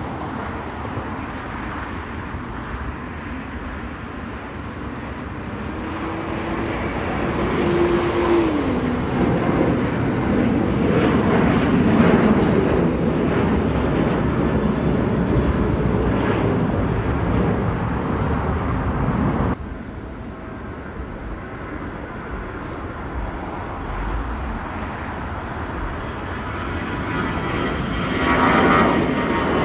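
Jet airliner engines running as a plane passes, a steady rush that grows louder for several seconds and then drops off abruptly about two-thirds of the way through. The rush of another aircraft swells again near the end.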